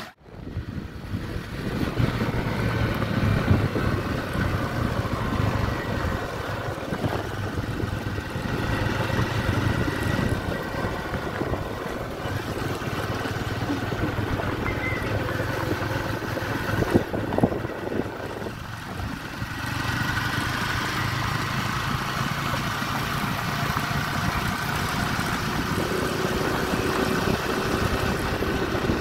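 Motorcycle engine running steadily as the bike is ridden.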